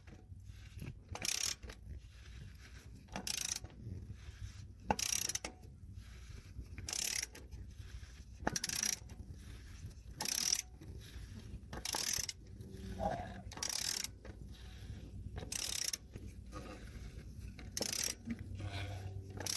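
Ratchet wrench being swung in slow strokes, a short burst of pawl clicks about every two seconds, tightening a part down until it is snug.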